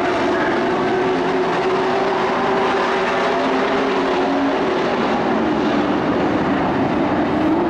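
Several racing pickup trucks' engines running hard around the oval together, a steady loud blend of engine notes whose pitches drift slightly up and down as the trucks pass.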